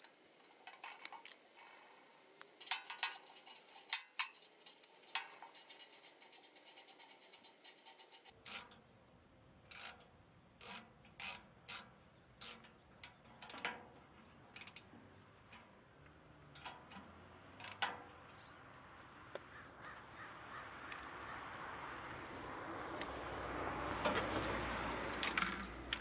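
Bolts being tightened through the steel floor of a Mail Boss 7526 locking mailbox with a ratchet socket wrench: scattered sharp metal clicks and clinks, spaced wider apart after about eight seconds. In the last several seconds a rushing noise swells up.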